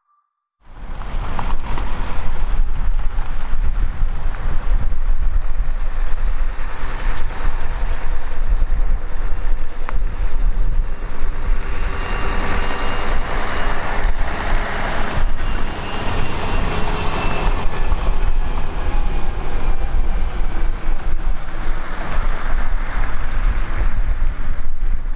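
Airbus A320-211's twin CFM56 jet engines at takeoff power: a loud, steady roar with a faint whine that slowly falls in pitch as the airliner goes by.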